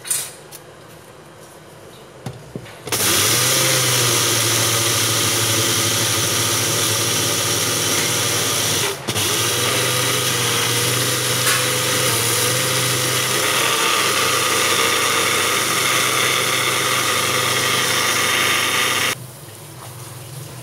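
Small electric blender motor grinding panko breadcrumbs into fine crumbs. It starts about three seconds in, runs steadily, breaks off for a moment about nine seconds in, then runs on until it stops near the end.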